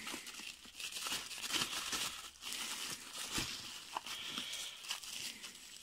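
Plastic bubble wrap and a bubble-wrap bag crinkling and rustling as they are handled and pulled open, with many small irregular crackles.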